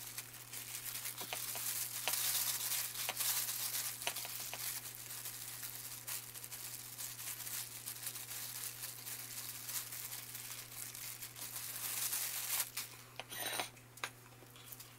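Thin disposable plastic gloves crinkling and rustling as gloved hands squeeze and roll cooked rice into small balls, with scattered light clicks.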